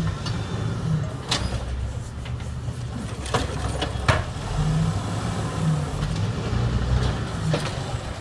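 Automated side-loader garbage truck's diesel engine running with a steady low drone, with a few sharp knocks, the loudest about four seconds in.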